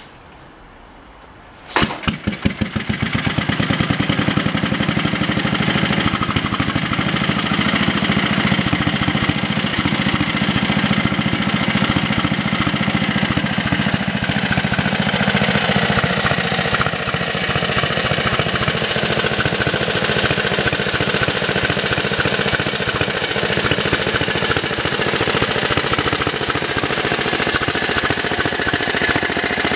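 Energic 712 tractor's single-cylinder diesel engine starting: it fires with a few sharp knocks about two seconds in, catches, and runs with a steady rapid chug, its speed slowly easing down over the following twenty seconds as it settles to idle.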